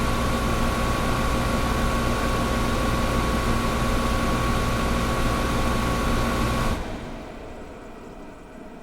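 Air conditioner running with a steady rushing hiss and a hum, then cutting off suddenly about seven seconds in. A fainter hiss is left, which keeps fading.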